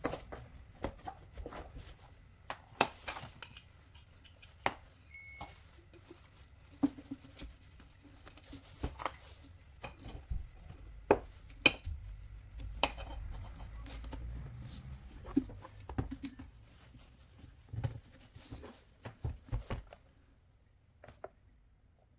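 Irregular clicks, taps and knocks of hard objects being handled and set down, scattered a second or two apart, over a faint low background rumble; the knocking stops about two seconds before the end.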